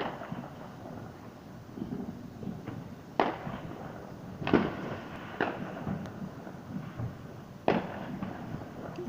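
Fireworks going off: a string of sharp bangs, four of them loud, spaced about a second or more apart, with fainter pops and a low rumble in between.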